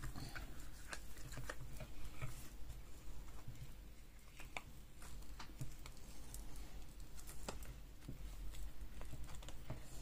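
Silicone mold being flexed and peeled off an epoxy resin tray that is not yet fully cured: faint, irregular small clicks and crackles as the mold lets go.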